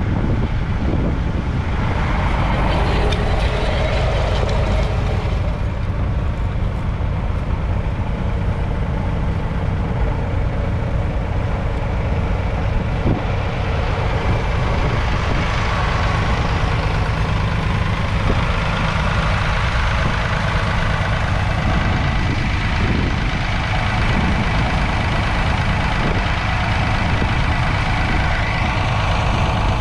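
Massey Ferguson 4215's 2.7-litre three-cylinder diesel engine running steadily.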